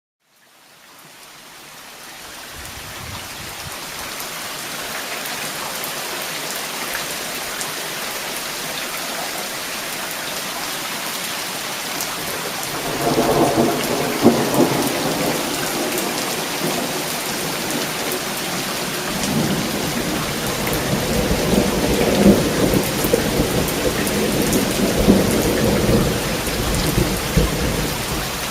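Steady heavy rain fading in from silence, then rolling thunder: a rumble with sharp cracks about halfway through, and a longer rolling peal through the last third.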